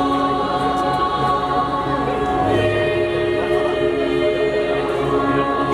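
Children's choir of boys and girls singing together, holding long notes that change pitch about two and a half seconds in.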